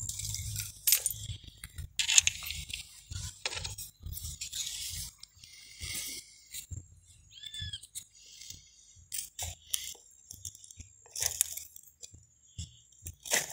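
Irregular crackling and crunching of dry twigs and reed stalks being stepped on and brushed against at the water's edge, over a low rumble. A short rising chirp sounds about halfway through.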